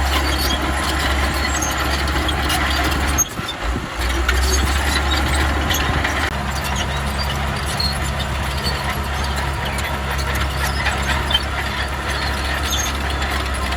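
Heavy diesel earthmoving equipment engine running steadily, with a brief drop in the sound a little over three seconds in.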